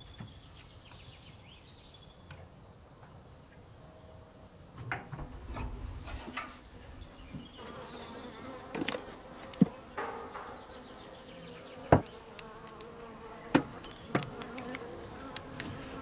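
Honeybees buzzing, the hum growing clearer about five seconds in. Several sharp knocks or clicks of handling come in the second half.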